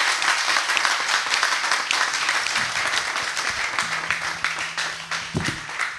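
Small audience applauding, many hands clapping at once, slowly dying down.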